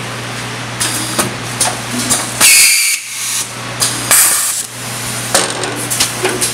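Pneumatic vertical form-fill-seal packing machine running with a steady hum, its air cylinders clicking and venting compressed air in two loud hisses. Toward the end, granular product rattles as it drops through the metal chute into the film tube.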